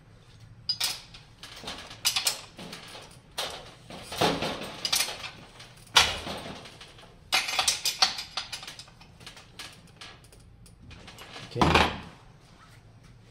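Irregular metallic clinks and clatters of a wrench working the kickstand bolt on a kids' electric balance bike frame, with a tool set down on the workbench.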